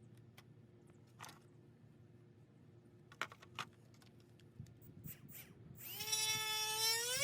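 A few light clicks and taps of handling, then about six seconds in a small cordless 12-volt die grinder spins up with a rising whine and runs at a steady high pitch.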